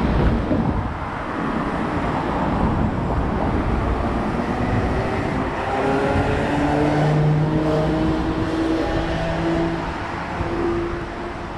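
Road traffic passing close by on a city street. From about five seconds in, a vehicle's engine note climbs in steps as it accelerates.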